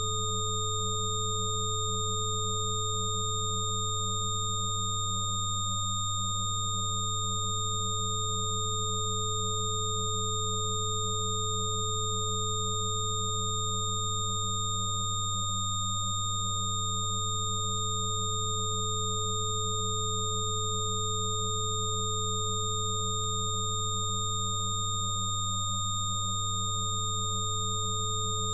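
Steady electronic sine tones sounding together at several pitches, a low hum the loudest among them. A middle tone briefly drops out and restarts about every ten seconds.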